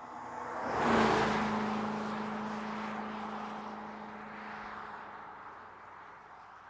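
BMW 6 Series Gran Coupe driving past at speed, loudest about a second in, where its engine note drops slightly. The engine note and tyre noise then fade as the car drives away.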